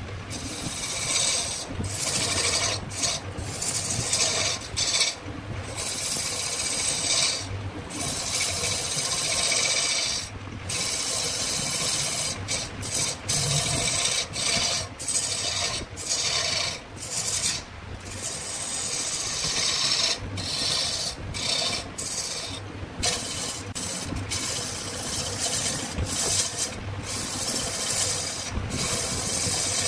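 Wood spinning on a lathe being worked by a tool held against it: a rasping, scraping hiss in repeated passes, broken by short gaps every second or two, over a faint low hum.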